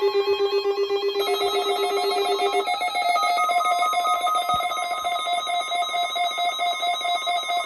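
Electronic alert tones: several steady pitches sounding together and pulsing rapidly, about six pulses a second. A few seconds in, the lowest tone drops out and higher tones take over.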